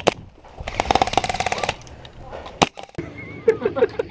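Airsoft gun firing: a quick shot or two, then a fully automatic burst of rapid clicking shots lasting about a second, and one more single shot. A voice starts near the end.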